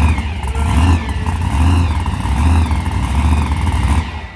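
Monster truck engine revving hard in repeated surges, a heavy low rumble, cutting off abruptly near the end.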